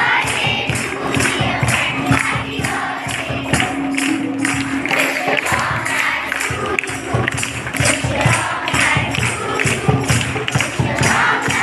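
Music with a steady, quick beat, about two to three strokes a second.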